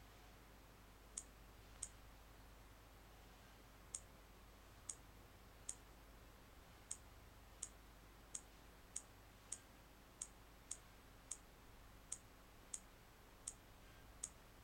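Touchscreen keyboard key-press clicks on an HTC Magic phone: about seventeen short, high clicks at an uneven typing pace, one per key tapped, over near-silent room tone.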